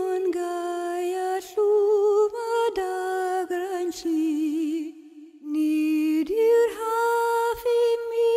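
Background music: a single unaccompanied voice sings a slow, wordless melody with long held notes and vibrato. It breaks off briefly about five seconds in, then goes on.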